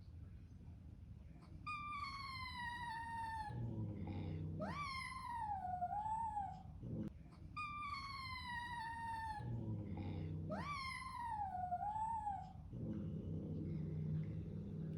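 Kitten meowing: four high calls in two matching pairs, each pair a long falling meow followed by one that rises and then wavers. A low steady rumble comes between the pairs and near the end.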